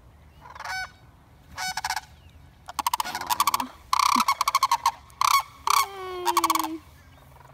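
A pair of sandhill cranes calling together in loud, rolling, rattling bugles, several bouts that build up and stop about a second before the end. It is the duet of a mated pair greeting each other as the released bird rejoins its mate.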